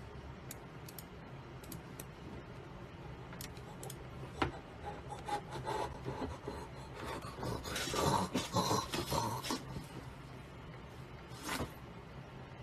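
Person shifting and leaning back in a gaming chair: rubbing and scratching noises with scattered light clicks, thickest about eight to ten seconds in.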